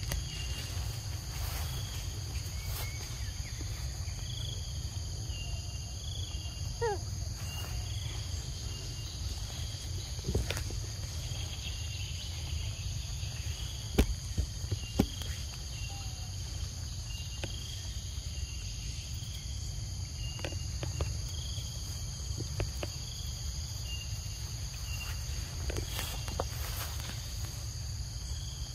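Steady chorus of forest insects with a short high chirp repeating about every second, over a low rumble. A few sharp clicks stand out, the loudest about halfway through.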